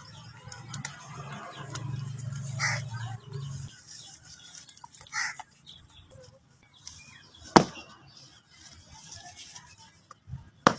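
Close-miked eating of crunchy food: scattered crunches and mouth sounds, with one sharp, loud crunch about two thirds of the way in and another short one near the end. A low hum runs through the first few seconds.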